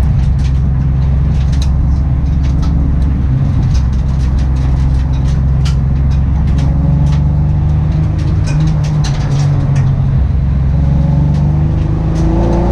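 Car engine with a misfire running steadily, with irregular sharp ticks over its low drone; near the end the engine note starts to rise as it revs up.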